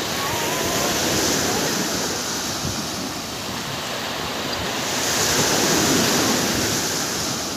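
Small surf breaking and washing up a sandy beach, swelling twice: about a second in and again around five seconds.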